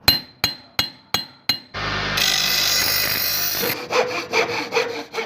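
Five quick hammer blows on steel, about three a second, each ringing briefly. Then about two seconds of steady rushing noise with a low hum, and then rhythmic rasping strokes about two and a half a second, like a file worked back and forth on steel.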